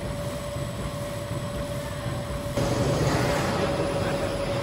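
HCI FSC-V803-2 sterilization pouch and reel making machine running: a steady mechanical rumble with a constant whine. About two and a half seconds in, the noise changes abruptly to a louder, brighter running sound.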